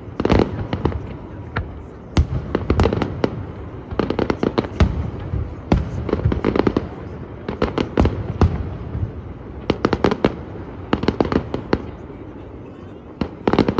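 Aerial fireworks bursting in rapid clusters of sharp bangs and crackles over a low rumble, easing off into a short lull near the end before a final couple of bangs.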